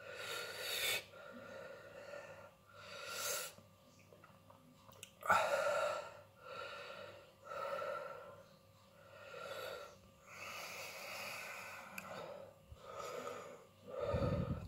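A man breathing hard in and out through his mouth, a string of about ten sharp, noisy breaths a second or so apart, from the burn of a superhot chilli in his mouth.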